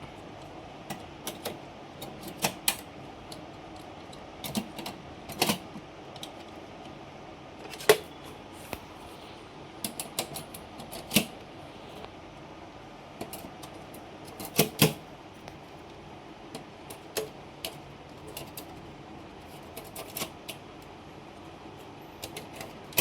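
Irregular sharp clicks and knocks of hard parts being handled inside a Dell PowerEdge R730 server chassis during a motherboard replacement, some coming in quick pairs.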